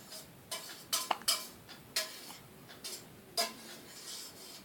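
A baby hiccuping: short sharp hiccups several times at uneven intervals.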